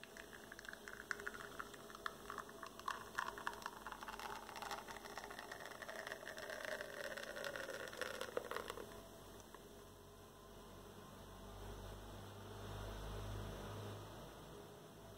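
Espresso from a Cafelat Robot manual lever machine dripping and then streaming into a porcelain cup. A crackling patter of drops runs until about nine seconds in, then settles into a smoother trickle. A low hum comes in after about ten seconds.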